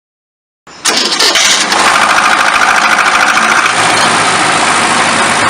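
Car engine starting and running, cut in abruptly about a second in and cut off just before the end.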